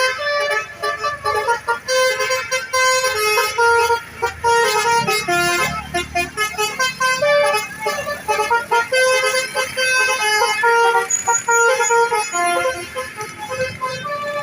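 Multi-tone Basuri 'telolet' bus horns playing fast melodies, a steady run of short notes that jump from one pitch to another.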